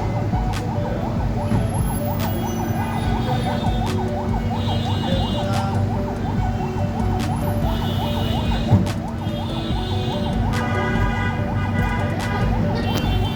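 A siren wailing in a fast yelp, its pitch sweeping up and down several times a second without a break, over a steady low hum, with scattered sharp clicks.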